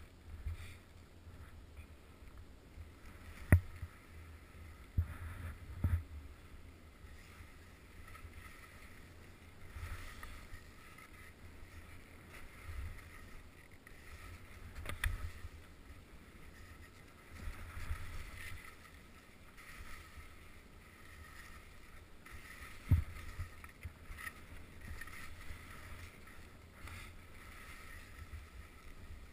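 Skis sliding and swishing over snow on a steep descent, the hiss swelling with each turn, over a low rumble of wind on the microphone. A few sharp knocks cut through: the loudest a few seconds in, two more soon after, and another past the twenty-second mark.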